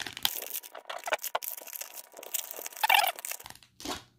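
Foil wrapper of a Panini Illusions football card pack being torn open and crinkled by hand, loudest about three seconds in.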